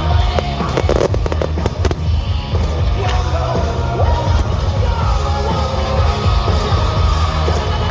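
A fireworks display's music soundtrack playing loud with a heavy bass line, with firework bangs and crackling shells over it, thickest in the first couple of seconds.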